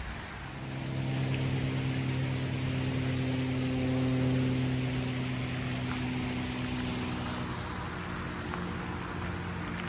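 Engine hum, steady in pitch, that swells about half a second in, is loudest around the middle and eases off towards the end.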